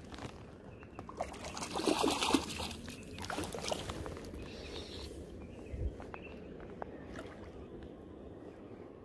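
Splashing and sloshing in shallow river water, a cluster of splashes loudest about two seconds in, over a steady river murmur.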